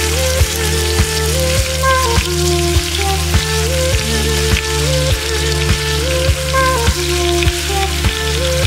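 Background music with a steady beat and a melody, over the sizzle of beef chunks frying in hot oil and butter in a pan.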